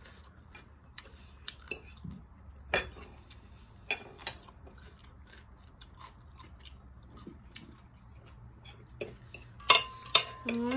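Eating sounds at a table: quiet chewing and scattered light clicks of fingers and a fork on a salad plate, with a cluster of louder clinks near the end.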